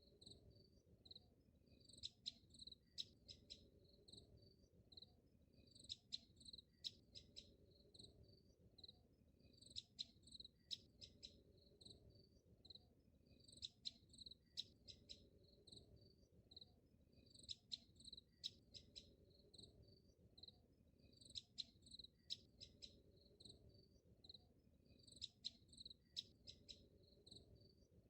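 Faint, high cricket-like chirping in clusters that repeat in the same pattern about every four seconds, over a low, faint hum.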